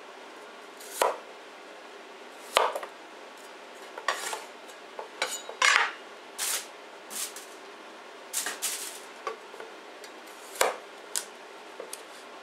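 Chinese cleaver cutting potatoes into wedges on a wooden chopping board: separate knocks of the blade hitting the board at an uneven pace, roughly one every second, a few coming in quick pairs.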